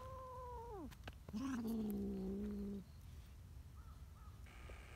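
Cats calling face to face: a drawn-out meow that drops in pitch and fades just under a second in. After a short pause comes a lower, louder, steady yowl lasting about a second and a half.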